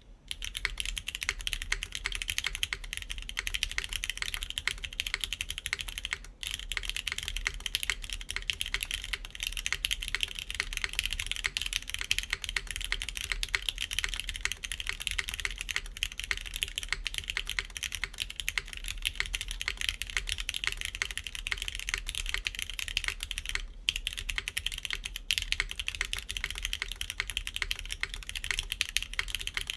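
Continuous fast typing on a KBDfans Tofu60 3.0 mechanical keyboard in PCB gasket mount, with clicky TypePlus NK Classic Blue switches under GMK keycaps on a PEI plate. The typing starts about half a second in and pauses briefly around six seconds and again near twenty-four seconds.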